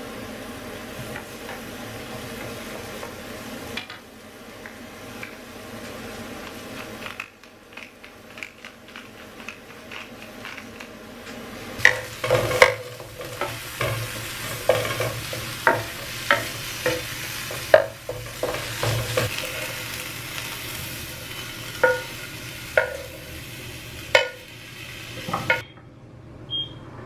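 Vegetables sizzling as they fry in a pan. From about halfway through, a utensil stirs them, with repeated sharp knocks and scrapes against the pan.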